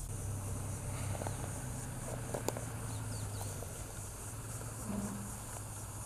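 Cicadas buzzing steadily over the low, steady hum of a Ford Cargo dump truck's diesel engine idling, with a brief click about two and a half seconds in.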